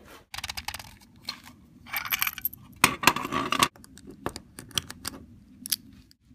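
Brass rimfire cartridges clicking and clinking as they are handled and pressed one at a time into a rifle's detachable box magazine, in a run of sharp clicks with short bursts of metallic rattling.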